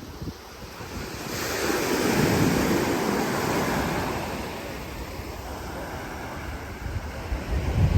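A sea wave breaking and washing up the shore, swelling suddenly about a second in and fading over the next few seconds. Near the end, wind buffets the microphone.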